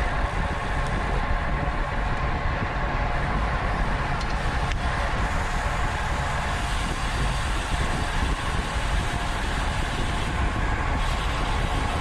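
Wind rushing over a bike-mounted camera's microphone while riding at race speed, with a steady whir from the tyres and drivetrain underneath.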